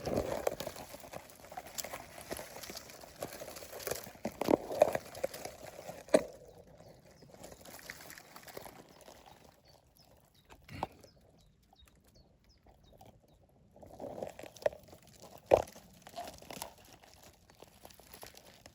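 Rustling and crackling of gorse and undergrowth being handled or pushed through, busiest at the start and again near the end, with a few sharp clicks and snaps.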